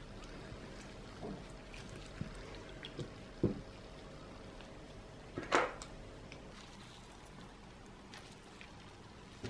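Soft splashes and drips of water as gloved hands stir thin raw potato slices soaking in a bowl of water and lift them out, with a few scattered small sounds and the loudest splash a little past halfway.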